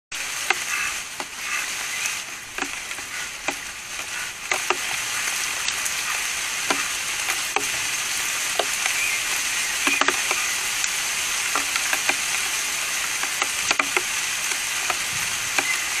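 Magpie pecking at a wire-mesh peanut feeder: sharp, irregular taps of beak on the metal mesh, roughly one a second, over a steady hiss.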